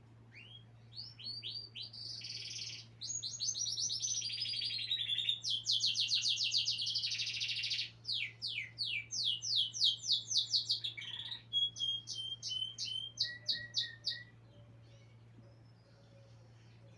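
A songbird singing one long, fast song of rapid trills and quickly repeated high notes, changing pattern several times, for about fourteen seconds before it stops. A faint steady low hum sits underneath.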